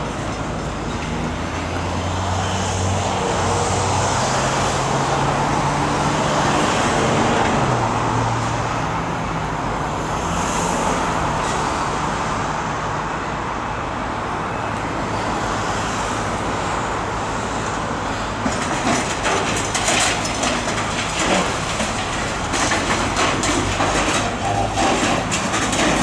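Demolition excavator working, its engine and hydraulics running steadily, with a low note that shifts pitch several times in the first half. Over the last several seconds, a run of sharp cracks and knocks as metal cladding and framing are torn and crushed.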